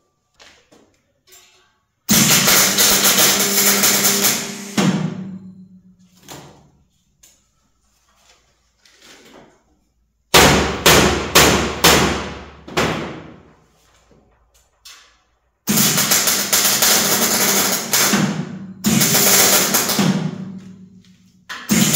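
Rapid hammer blows on sheet metal in three bursts of a few seconds each, each starting and stopping abruptly.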